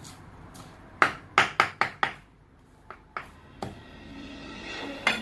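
Kitchen knife chopping salam leaves on a wooden cutting board: a quick run of five sharp chops about a second in, then a few lighter, scattered knocks.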